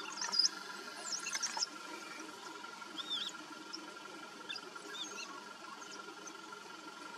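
African wild dogs twittering: short, high-pitched chirps and squeals in scattered bursts, busiest in the first second and a half, then a pair of arched calls around three seconds and a few more near five seconds.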